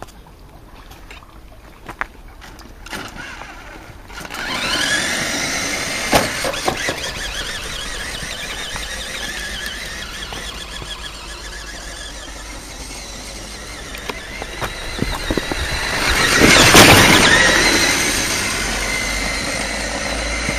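Radio-controlled toy Hummer H2's electric motor and gears whining, the pitch rising and falling as it speeds up and slows. It starts about four seconds in and is loudest a few seconds before the end.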